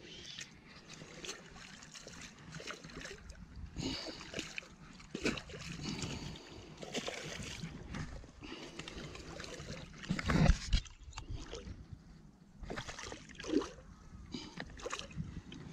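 Hooked golden perch splashing and thrashing in shallow water against the rocks, in irregular bursts, with one louder thump about ten seconds in.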